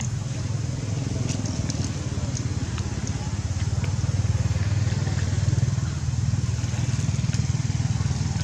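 An engine running steadily, with a low pulsing rumble throughout. A few faint crackles come in the first few seconds.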